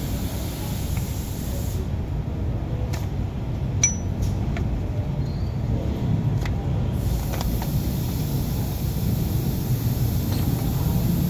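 A few light metallic clinks of tools on engine parts, the sharpest about four seconds in, over a steady low rumble.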